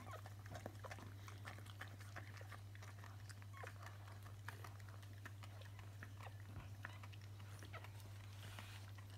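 Mother dog licking and cleaning her newborn puppies: a faint, irregular run of small wet clicks and smacks, over a steady low hum.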